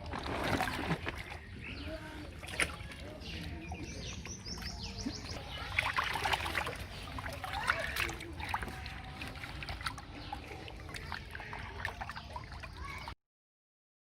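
Water splashing and sloshing, with scattered sharp knocks and clicks; the sound stops abruptly near the end.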